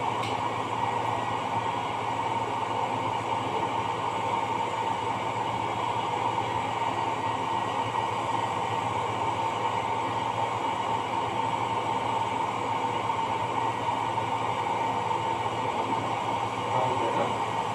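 Steady machinery drone with a constant whine, unchanging throughout.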